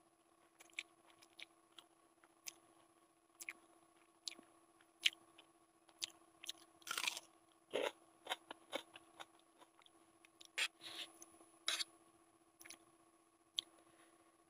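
Close-miked eating sounds of Maggi noodles: irregular wet chewing clicks and smacks, busiest in the middle, with crunching as a piece of raw onion is bitten. A faint steady hum runs underneath.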